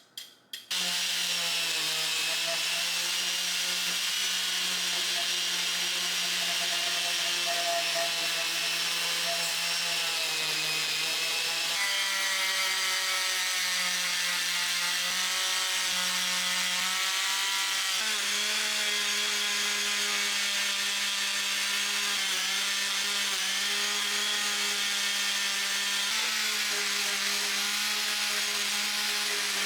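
A power tool's motor starts about a second in and runs steadily while working a surface, its pitch shifting slightly a few times as the load changes.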